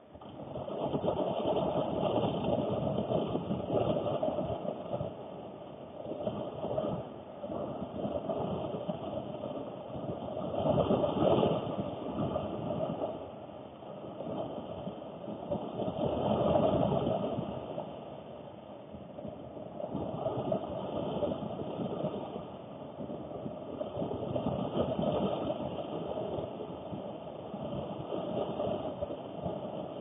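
Heavy rain drumming on a car's roof and windows, heard from inside the cabin, swelling and easing in gusts and loudest about 11 and 16 seconds in.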